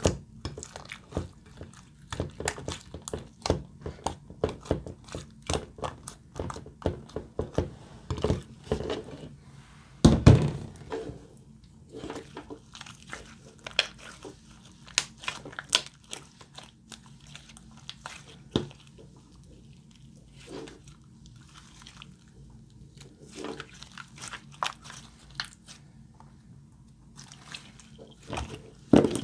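Glossy slime being squished, stretched and folded by hand, giving a running series of sticky clicks and small pops. The loudest squelch comes about ten seconds in, and the clicks thin out for a few seconds past the middle before picking up again near the end.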